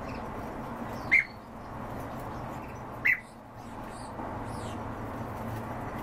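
Captive birds calling: two short, loud calls about two seconds apart, with fainter high chirps and a brief falling whistle, over a steady background noise.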